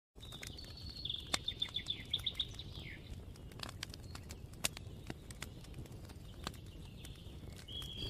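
A small bird singing a rapid run of high chirping notes, ending in a short falling note about three seconds in, then scattered sharp clicks over a faint outdoor background.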